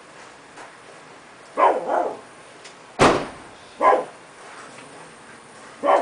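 A dog barking, about five short barks at uneven intervals, the loudest about three seconds in, over a faint steady background noise.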